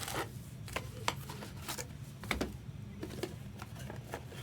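Scattered light clicks and soft taps at an uneven pace, a few each second, over a low steady room hum.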